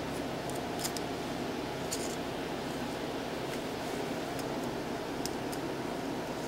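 Steady machine hum, with a few faint, short clicks scattered through it from hand tools and small metal parts being handled.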